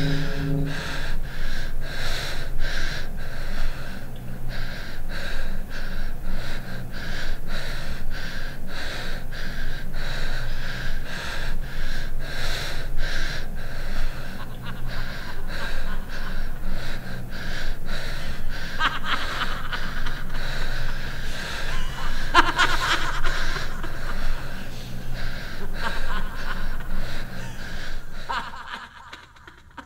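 A man's rapid, heavy breathing, about two breaths a second, as he sleeps through a nightmare, with a couple of sharper, louder breaths past the middle; it drops away near the end.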